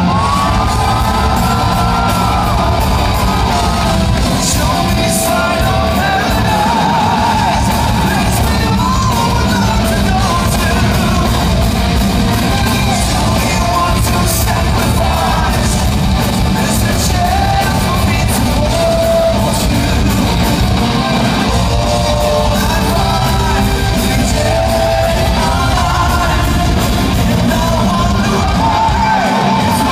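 A power metal band playing loud live: drums, distorted guitars and a singer holding sung notes, with shouted vocals. Heard from within the crowd in a large hall.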